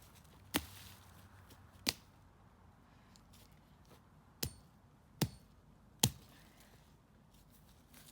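Five sharp chops of a blade biting into wood, coming at uneven intervals.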